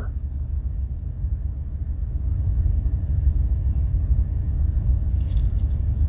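Steady low rumble of background noise, with faint light clicks near the end as the blades of a Swiss Army knife are handled.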